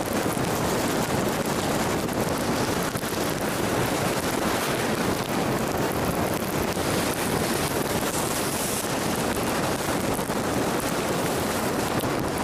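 Steady rushing road and wind noise of a Jeep driving on a wet highway in rain, with no break or change.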